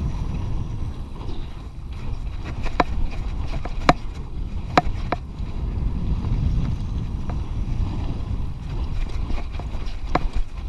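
Mountain bike rolling fast over a dirt pump track, with wind buffeting the body-mounted camera's microphone and tyre rumble. Several sharp knocks and rattles from the bike over the bumps, around three, four and five seconds in and again near the end.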